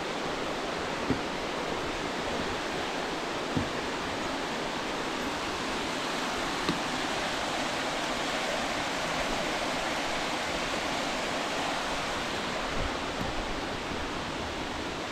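Steady rush of water from a stream running through a rocky gorge, with a few short thumps scattered through it.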